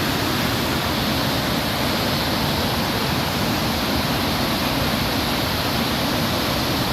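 Steady, loud rushing of a large waterfall, Bow Falls on the Bow River.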